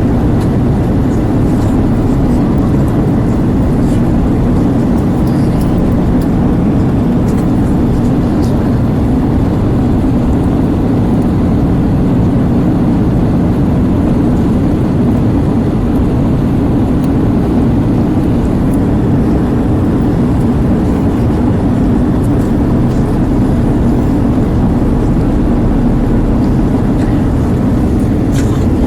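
Steady cabin noise of an Airbus A320 airliner in flight: engine and airflow noise, deep and unchanging.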